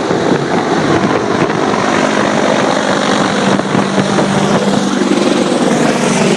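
AH-64D Apache Longbow helicopter running steadily: the whir of its rotors and the hum of its twin turboshaft engines, with wind noise over the phone's microphone.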